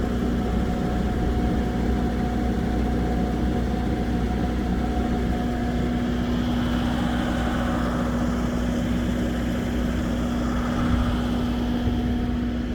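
A steady machine drone: a constant low humming tone over a continuous rumble, unchanging throughout.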